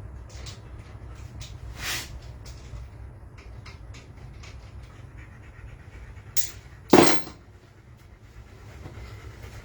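Tools and metal engine parts being handled during an engine teardown: scattered light clicks and taps, a sharper clink about two seconds in and a louder knock about seven seconds in, over a low steady rumble.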